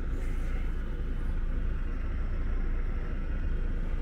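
Gas burner fed by hose from an LPG cylinder, running with a steady low rumble as it warms the diesel tank of an Isuzu V-Cross pickup. The truck will not start in the cold because there is no anti-freeze in its diesel.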